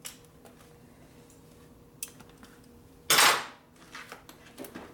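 Metal hand tools clinking and rattling as they are handled, with a few sharp clicks and one loud, short clatter about three seconds in.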